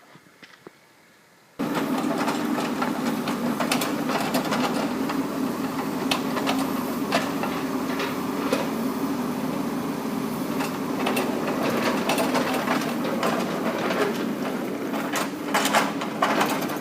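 Kubota mini excavator's diesel engine running steadily, starting abruptly about a second and a half in, with scattered metallic clanks and knocks from the machine working.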